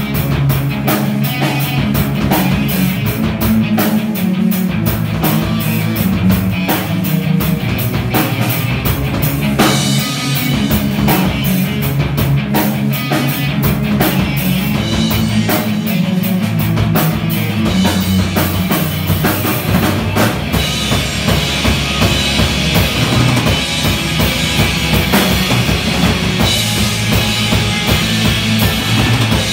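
Live rock band playing: drum kit, electric bass and two electric guitars. Regular drum hits over a heavy bass line, with the high end turning to a steadier, thicker wash about two-thirds of the way through.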